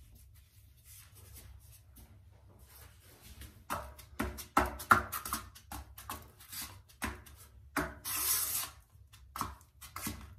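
A flat float rubbed and scraped over pebble tile to press the stones level into wet thinset. About a third of the way in comes a series of short scraping strokes, with one longer scrape a little before the end.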